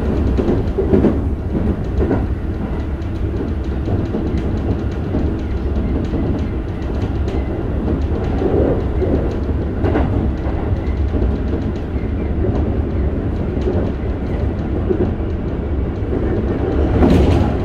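Keikyu 1000 series electric train heard from inside the car while running: a steady rumble of wheels on rail with scattered clicks over rail joints, and a louder rush of noise near the end.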